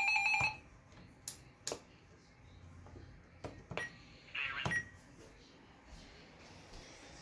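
A handheld radio's steady electronic tone cuts off about half a second in. It is followed by scattered sharp clicks, as of the radio's buttons and knobs being worked, two very short beeps and a brief burst of hiss about four and a half seconds in.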